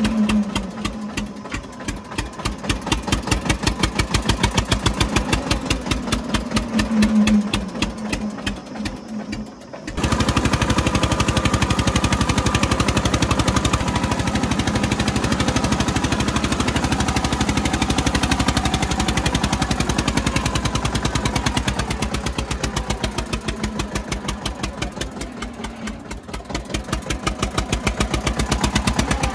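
Eicher 242 tractor's two-cylinder air-cooled diesel engine running under load as it drives through mud, with a strong, even, pulsing beat. About a third of the way in the engine sound jumps louder and fuller, then eases off and swells again near the end.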